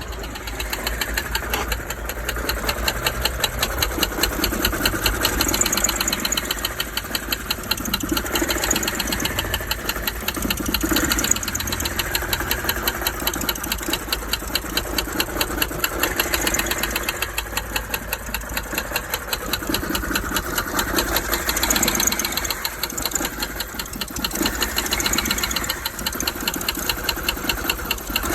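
BMW 525i E60's straight-six engine idling with a fast, regular rattling tick, its speed and loudness rising and falling unevenly every few seconds: the rattle and idle fluctuation of an engine fault that appeared after a kickdown run on a warm engine.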